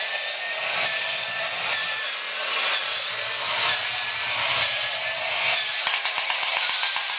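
Battery-operated Horikawa tin toy space capsule running, its small electric motor and gears whirring and rasping as it rolls across a wooden floor. Near the end a quick ratcheting click starts, about four clicks a second.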